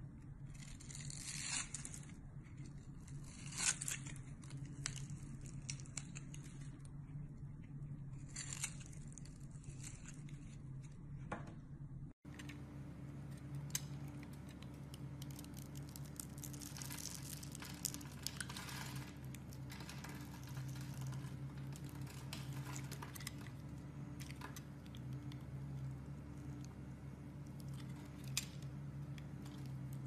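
Knife blade cutting into bar soap: scraping strokes and crisp crackling as scored soap breaks off in small cubes and shavings, over a steady low hum. The sound drops out for a split second about twelve seconds in, and the cutting then continues.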